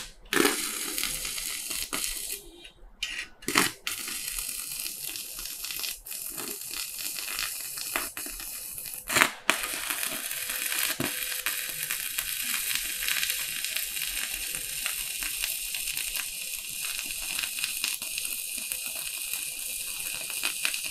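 Arc of a Hukan HK-200 mini inverter stick welder crackling and sizzling as the electrode lays a bead on thick steel. The arc drops out and is re-struck a couple of times in the first ten seconds, with sharp taps, then burns steadily through the rest.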